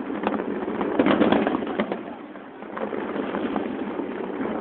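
Aerial fireworks shells bursting: a dense run of bangs and crackles, heaviest about a second in, easing off and then picking up again.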